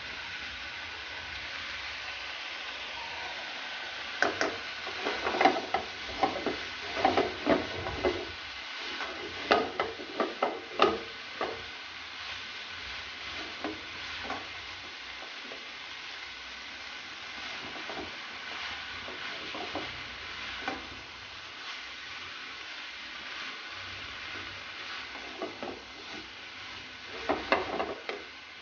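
Shredded vegetable and chicken filling sizzling in a frying pan over a high flame, with a steady hiss. A spatula scrapes and knocks against the pan as the filling is tossed, in a busy spell from about four to eleven seconds in and again near the end.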